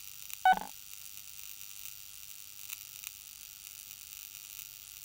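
Glitch sound effects: a steady electronic static hiss, with one short, loud electronic blip that falls in pitch about half a second in and a couple of faint clicks a few seconds later.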